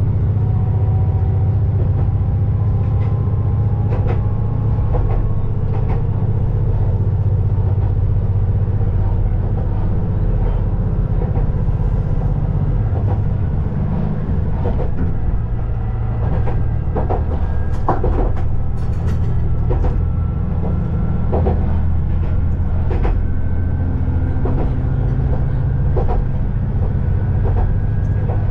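KiHa 20-series diesel railcar under way, heard from inside the car: a steady low diesel engine drone with a faint whine that rises slowly in pitch. Irregular clicks of the wheels over rail joints come more often in the second half.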